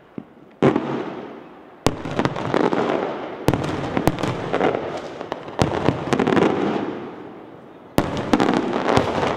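Aerial fireworks shells bursting overhead: about eight sharp bangs, several in quick pairs, each followed by a long, slowly fading rush of noise.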